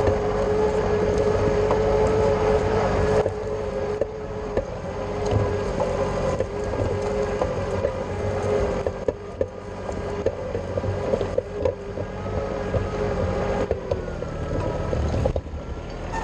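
Kubota compact tractor engine running with a steady drone. The drone drops in level about three seconds in, after which scattered knocks and rattles are heard over it.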